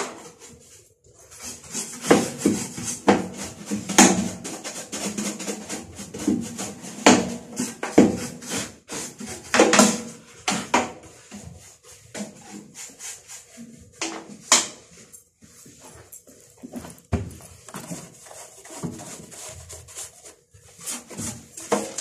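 Handling noises from work on a microwave oven: irregular knocks, rubs and scrapes, some sharper clicks among them.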